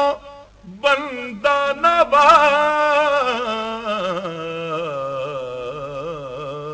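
Male voice reciting an Urdu naat in a melodic chant: a few short sung phrases, then from about two seconds in one long drawn-out note with a wavering vibrato that slowly fades.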